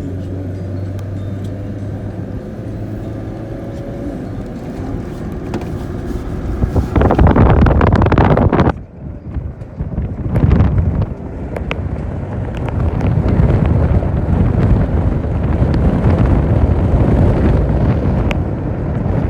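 A vehicle on the move: a steady low engine and road rumble, with a loud rush of wind noise about a third of the way in that cuts off suddenly, then a heavier uneven rumble.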